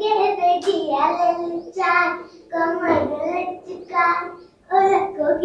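A young girl singing a song unaccompanied, with no backing music, in short phrases with brief breaks between them.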